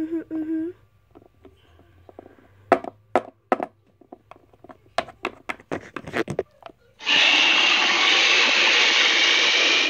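Sharp clicks and taps of plastic toy figurines being handled, then about seven seconds in a loud steady hiss that lasts about three seconds and cuts off abruptly.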